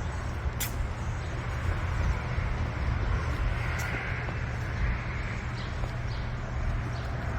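Street traffic noise: a steady low rumble with a passing vehicle swelling up around the middle, and a single sharp click shortly after the start.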